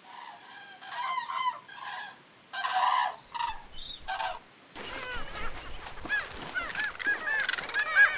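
Common cranes calling in short bursts of loud trumpeting for about four seconds. Then an abrupt change to a dense chorus of many birds' short overlapping calls.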